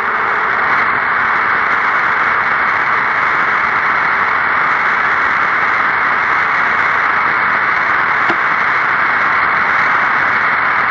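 Steady, loud hiss of radio static on a communications channel between transmissions, with no voice on it. There is a faint click about eight seconds in.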